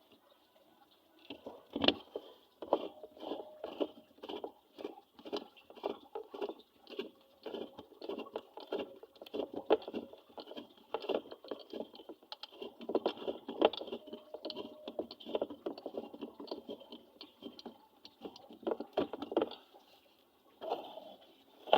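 A rapid, uneven run of small knocks and clicks, a few a second, stopping about two seconds before the end, with a single sharper knock at the very end. These are likely hand-work sounds on a washing machine gearbox.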